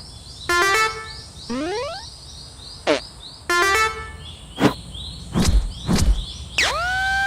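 A string of cartoon sound effects. There are several rising whistle-like glides and stepped tones, a few sharp clicks with deep thumps about two-thirds of the way in, and near the end a horn-like tone that rises and then holds steady. Under all of it runs a faint, rapid high chirping.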